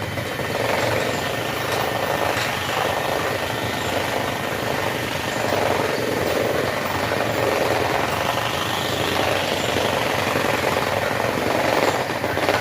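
Motor-driven carpet dust-removal machine starting up and running steadily, a loud mechanical noise as it drives the dust out of a carpet.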